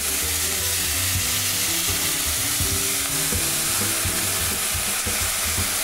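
Rabbit pieces sizzling in a hot frying pan as broth is ladled in so they don't burn, a steady hiss throughout.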